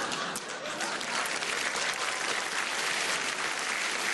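Large theatre audience applauding: many hands clapping in a dense, steady patter.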